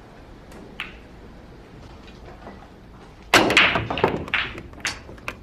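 Billiard balls clacking: one light tap, then about three seconds in a sudden loud run of sharp ball-on-ball clicks and knocks lasting about two seconds, as a shot scatters balls across a pool table.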